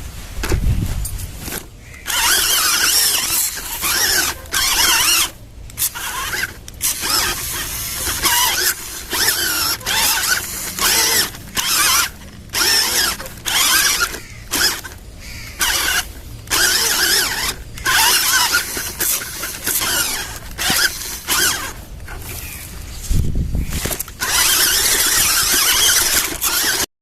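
Small electric motor and gear drive of an RC 4WD crawler truck running in short bursts, starting and stopping about once a second as the throttle is worked.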